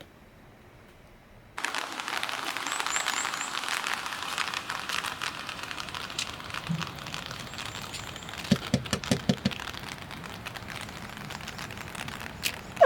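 Heavy rain pattering densely on the shell of a homemade light-truck camper, starting abruptly about one and a half seconds in after a quiet start. A quick run of soft low knocks comes about two-thirds of the way through.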